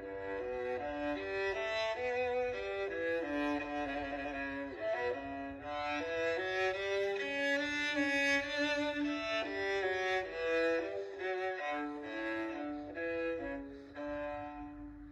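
Nokia 3109c polyphonic ringtone playing a melody of short stepping notes in a violin-like bowed-string voice over a lower sustained line.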